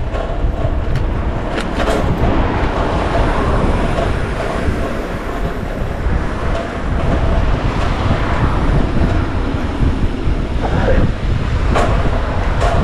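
Steady loud rumble of a moving vehicle, with a few sharp clicks and knocks.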